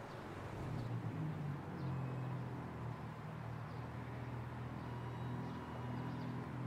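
Low, steady drone of held low notes that shift in pitch a few times, over a soft background hiss.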